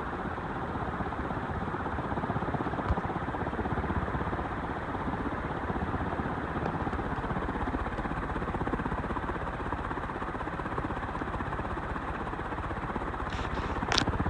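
Envirofan Goldline industrial ceiling fan running on high speed: a steady rush of moving air. It runs smoothly, as it should. There is a faint click about three seconds in and a sharper click near the end.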